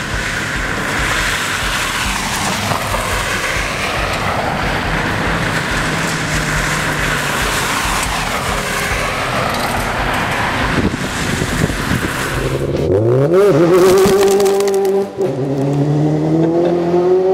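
Cars driving a loose gravel course, their engines running under the rush of tyres on gravel. About thirteen seconds in, an engine revs up sharply and then holds steady at high revs.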